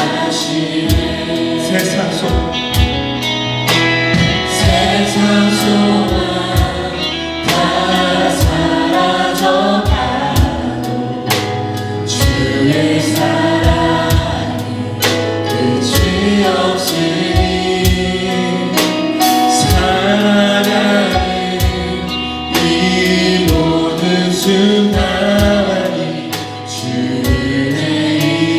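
Live contemporary worship music: a band with drums and bass backing a group of voices singing a Korean praise song, with a steady drum beat throughout.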